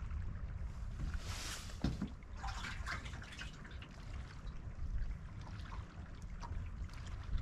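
Small waves lapping and splashing against the hull of an aluminium fishing boat, with two brief louder splashes in the first half, over a steady low rumble of wind on the microphone.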